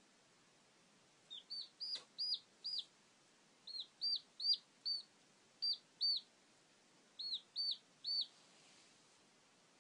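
A chick peeping: about fourteen short high cheeps, each rising then falling, in bunches of two to five. A single click about two seconds in.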